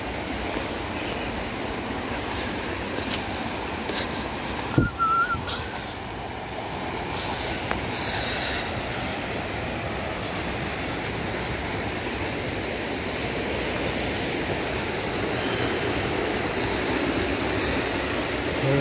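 Steady rush of flowing water, with a single thump about five seconds in.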